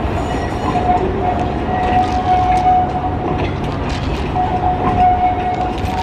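Diesel locomotive engines of the Alishan Forest Railway running, DL47 and DL48. The sound is a steady low rumble with a whine that drops out now and then and returns.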